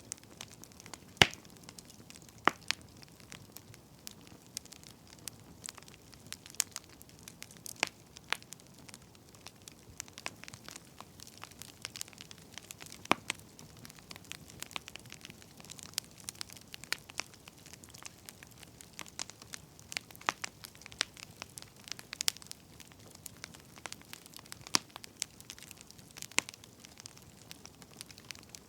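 Burning firewood crackling, with irregular small pops and snaps over a faint hiss and a few sharper, louder cracks.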